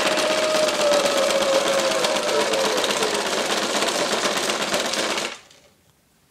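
Gemmy caged skeleton Halloween prop running, its motor shaking the cage in a fast, dense rattle, with a drawn-out falling tone over it for the first few seconds. The rattle cuts off suddenly about five seconds in.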